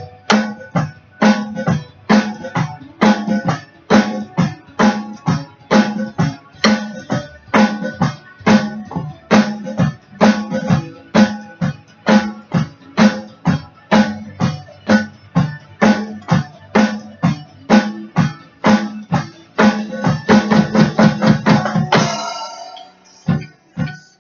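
Drum kit played in a steady, driving beat along with a recorded rock song. About 22 seconds in, the beat breaks off into a ringing decay with a few scattered hits.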